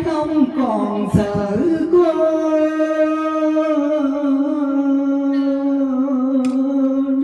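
A woman singing into a handheld microphone: a short phrase, then one long held note from about two seconds in, dipping slightly in pitch about four seconds in.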